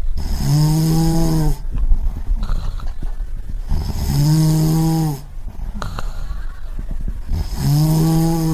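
A person snoring: three long, evenly pitched snores of over a second each, coming about every three and a half seconds, with noisy breathing between them.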